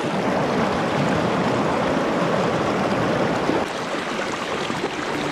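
River rapids rushing and splashing over rocks, heard right at the water's surface with the current washing around the microphone.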